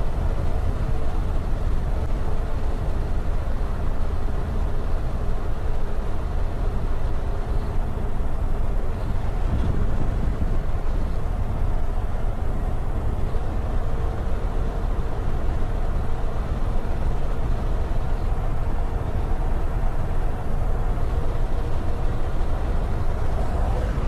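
Scania 164L T580 V8 truck cruising at highway speed: a steady low rumble of engine and road noise that does not rise or fall.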